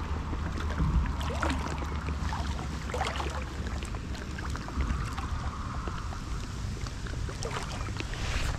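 Wind rumbling on the microphone over water, with irregular small splashes and lapping near a float tube.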